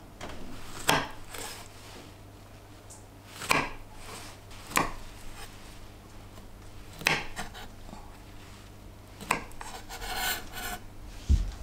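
Kitchen knife cutting strawberries and then blanched broccoli on a wooden cutting board: six or so separate cuts, each ending in a sharp knock of the blade on the wood. There is a rustle of broccoli florets shortly before the end.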